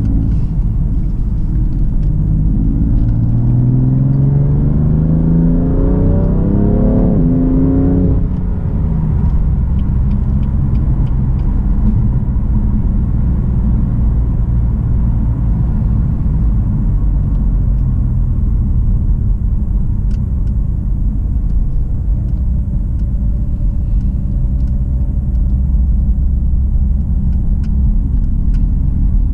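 BMW M3 F80's twin-turbo straight-six engine pulling hard, its pitch rising for about five seconds before dropping off suddenly about eight seconds in. After that it settles into a steady low rumble at cruise, with road noise underneath.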